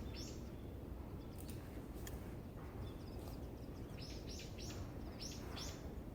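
A small bird calling in quick series of short, high chirps, once at the start and again in a longer run about four seconds in, over a steady low background rumble.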